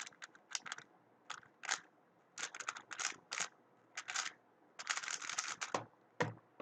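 Weilong WRM 2019 speedcube being turned at speed: quick bursts of clicking and clacking as the layers snap round, in clusters with short gaps, the longest flurry near the end.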